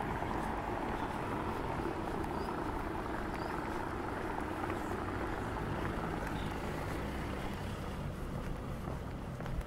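Motor vehicle engine running close by, a low, even hum with street noise.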